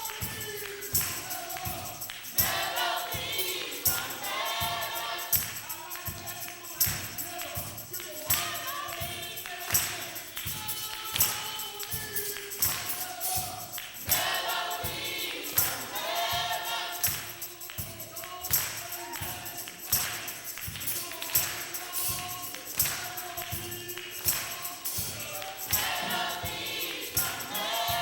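Gospel choir singing over a steady, strongly accented percussion beat.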